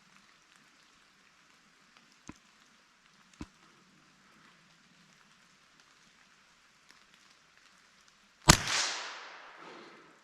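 A single shot from a Marlin Model 60 .22 rifle, one sharp crack about eight and a half seconds in, with a long echo trailing off. Before it, only a couple of faint ticks.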